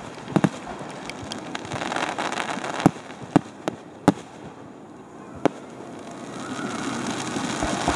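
Aerial fireworks shells bursting in a display: about seven sharp bangs at uneven intervals, including a quick pair near the start and a cluster around the middle, over a continuous rumble from the display.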